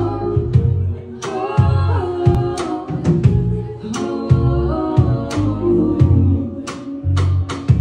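Live band playing a song: electric guitar, electric bass and drum kit, with sung vocals over the top and regular drum hits.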